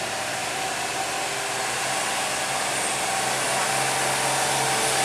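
Diesel engine of an Isuzu FVZ 285PS tanker truck running under load at low speed, heard as a steady hissing rush over a low engine note that grows louder as the truck comes closer.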